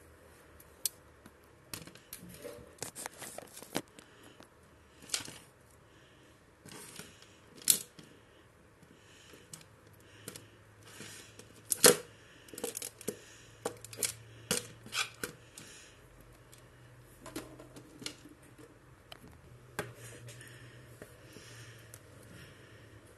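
Plastic Teenage Mutant Ninja Turtles action figures being handled on a desk: irregular clicks and taps of plastic parts and weapons, with quieter handling between them. The sharpest click comes about twelve seconds in.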